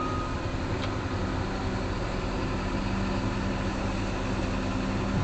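Case 245 excavator's diesel engine running at a steady speed, a low even hum with no hammer blows.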